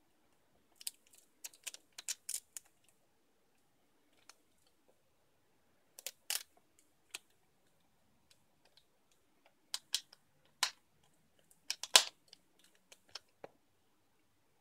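Scattered light plastic clicks and taps from hands handling an HP Pavilion dv6 laptop's LCD panel and its display cable connector. They come in small clusters, the sharpest click late on.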